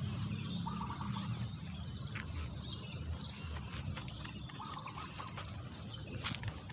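Wild birds calling outdoors: a short call repeated twice, with scattered higher chirps, over a steady low rumble.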